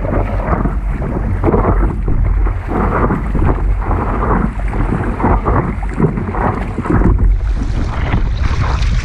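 Wind buffeting the microphone with a heavy low rumble, over water splashing and slapping against a stand-up paddleboard as it is paddled, in irregular surges.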